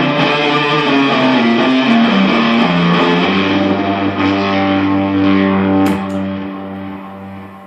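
Guitar playing a run of single notes, then a chord held from about three seconds in that rings out and fades away toward the end, recorded through a smartphone microphone.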